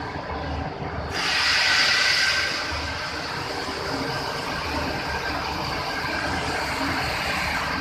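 Steady low machinery hum in a workshop. About a second in, a loud hiss starts suddenly, then carries on more quietly.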